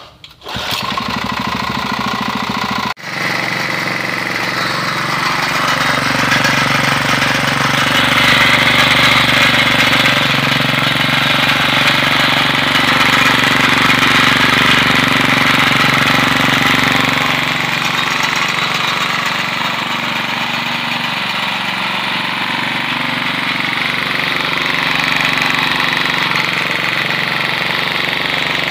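Small single-cylinder petrol engine of a portable water pump running steadily, starting about half a second in and dropping out for an instant soon after. It runs after a repair for failing to start when the pump had stood unused.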